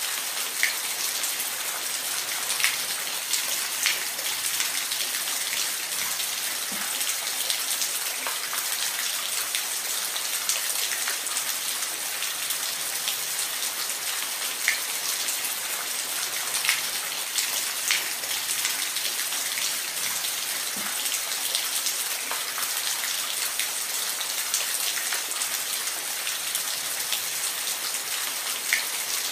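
Waterfall: a steady hiss of falling water with scattered short splash ticks.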